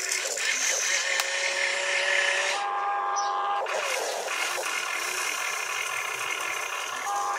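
Electric motors of an RC model excavator whining as it lifts its bucket of dirt and swings toward the dump truck, the pitch stepping up and sweeping as the arm and turntable move under load.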